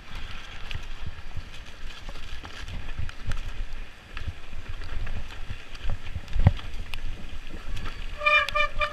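Trek Slash 8 mountain bike rolling fast down wet singletrack: a steady rumble with knocks and rattles over the rough trail and wind on the handlebar-camera microphone, with one hard thud about six and a half seconds in. Near the end, the wet disc brakes honk in short horn-like pulses, several a second.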